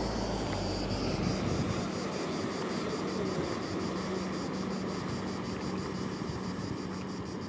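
Crickets chirping in a steady high pulse, about five chirps a second, over a noisy background. A low rumble dies away in the first two seconds, and the whole sound slowly fades.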